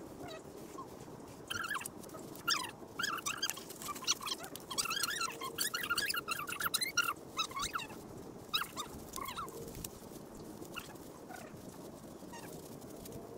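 Poultry calling: a busy run of short calls from about a second and a half in until nearly ten seconds, then only a few scattered ones, over a faint steady hum.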